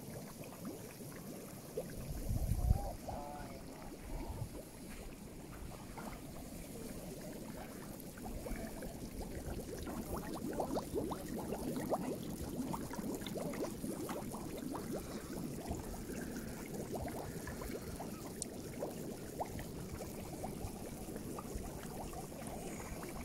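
Water gurgling and bubbling as a steady crackly patter of small pops, busier from about a third of the way in, with one low bump near the start.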